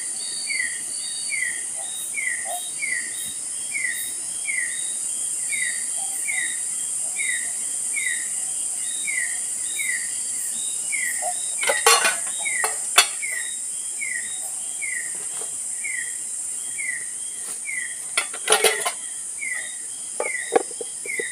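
Tropical forest ambience: a steady high-pitched insect drone, with a short falling chirp repeated about every 0.6 s. Camp cookware clatters briefly about twelve seconds in and again near the end.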